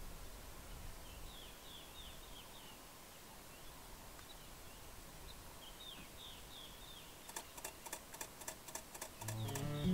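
Faint open-air background with a bird giving groups of short, falling high chirps. A run of sharp clicks starts about seven seconds in, and guitar music begins to come in near the end.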